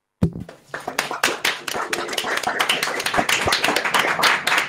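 Applause from participants in an online video call: a knock at the start, then many hands clapping in a dense, irregular patter.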